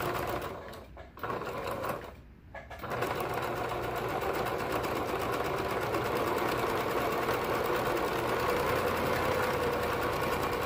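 Domestic sewing machine stitching a seam in knit fabric: two short runs in the first two seconds, a brief pause, then running steadily from about three seconds in.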